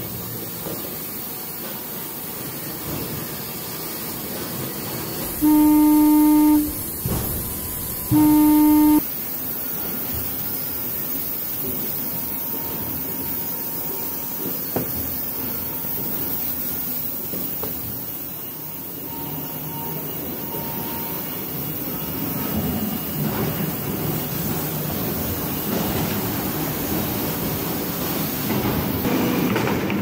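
Sawmill machinery running with a steady, noisy din. Twice, about five and eight seconds in, a loud low warning tone sounds, each time for about a second.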